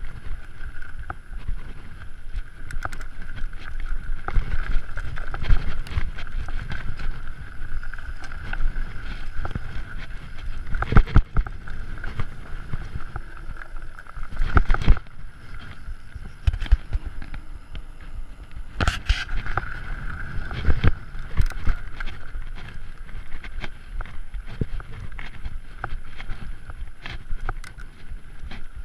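Mountain bike ridden over a rough dirt and rocky trail, with wind rumbling on the microphone and the bike rattling and knocking over bumps. A few hard knocks stand out among the rattles.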